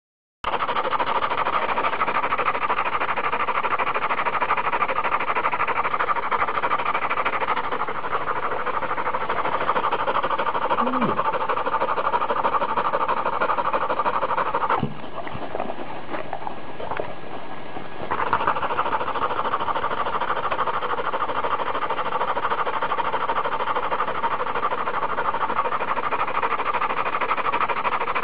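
Dog panting heavily, close to the microphone, with a quieter stretch of about three seconds just past the middle. Panting is how a dog sheds body heat.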